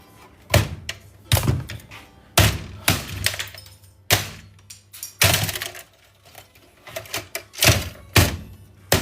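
Electronics being torn down by hand for scrap: about a dozen sharp knocks, cracks and clatters of hard parts being pried, snapped and set down, at uneven intervals.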